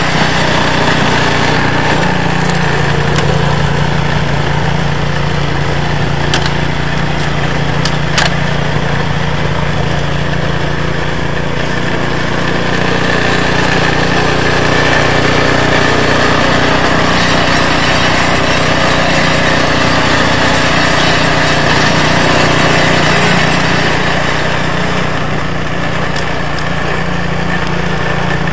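REDVERG two-stage snowblower with a Briggs & Stratton engine, running steadily under load while its auger and impeller throw snow out of the chute. Two short, sharp knocks are heard about six and eight seconds in.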